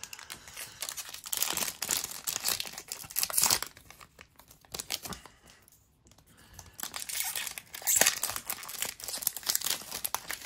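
Foil Pokémon booster pack wrapper crinkling in the hands, in two spells of rustling with a short pause between; the pack is torn open in the second spell, loudest about eight seconds in.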